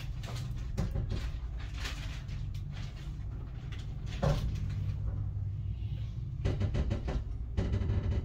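Dresden funicular car with a steady low hum, scattered knocks and clicks over it, a sharper knock about four seconds in and a rattling clatter near the end.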